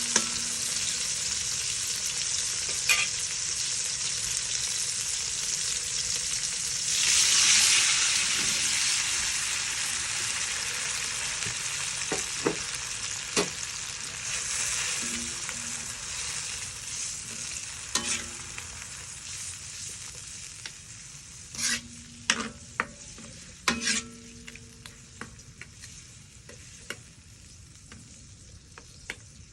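Food sizzling in a hot pan while a metal utensil stirs it, clinking and scraping against the pan now and then. The sizzle swells for a couple of seconds about seven seconds in, then gradually dies down, while the clinks come more often in the second half.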